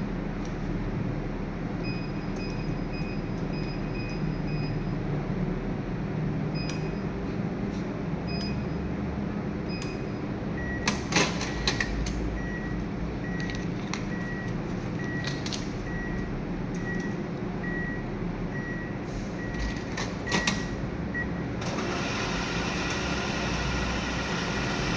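ATM beeps: short high beeps come singly and in small runs, as if keys are being pressed. Then a steady string of lower beeps follows, about three every two seconds, for around eleven seconds, with a few sharp mechanical clicks partway through and near the end. A steady low hum runs underneath.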